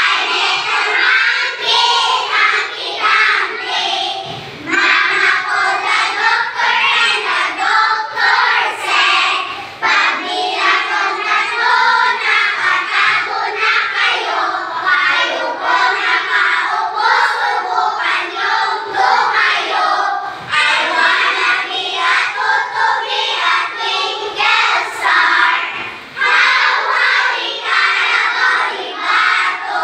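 A class of schoolchildren singing nursery rhymes together, with short breaks between lines.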